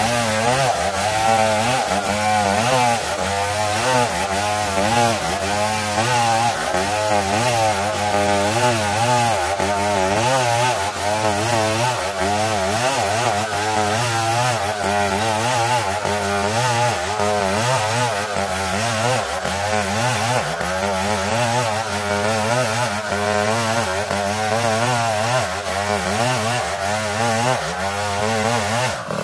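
Two-stroke chainsaw running under load, ripping lengthwise through dense ulin (Borneo ironwood) as the bar is drawn backward along the cut; the engine pitch wavers up and down continuously as it bites into the wood.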